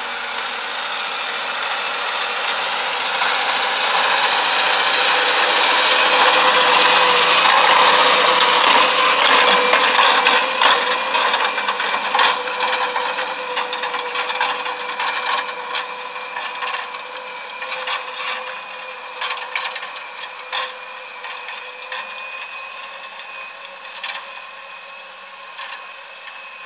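Tractor engine running steadily with a held whine as it pulls a Bomford Dyna Drive ground-driven cultivator through the soil. It grows louder to about eight seconds in, then fades as it moves away. The cultivator's rotors and rear roller knock and rattle over clods in scattered clicks through the second half.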